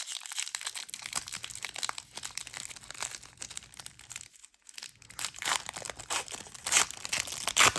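Plastic packaging crinkling and tearing as a sealed trading-card box is opened, with a short pause a little past halfway and louder crinkling near the end.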